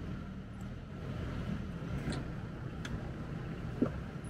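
A diesel engine running at a steady low rumble, heard from the Sherp's cab, with a single sharp knock near the end.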